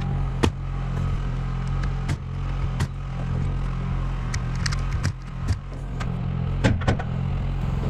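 Pneumatic coil nailer firing 3¼-inch galvanized nails into tongue-and-groove roof boards: a series of sharp shots at irregular spacing, the loudest about half a second in. A steady motor hum runs underneath.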